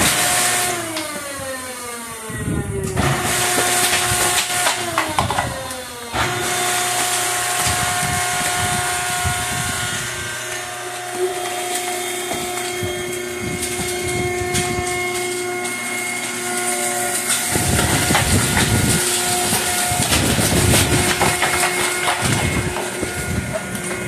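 Hydraulic drive of a PTR 2300 downstroke baler running as a PET #1 bottle bale is ejected. A steady hum and hiss carries several tones that slide down in pitch over the first few seconds and then hold steady, with clicks and crackles from the machine and the compressed plastic.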